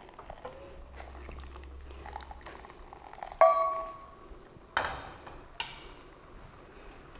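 Metal cookware clinking in the kitchen: one sharp knock about three and a half seconds in that rings briefly, followed by two softer knocks.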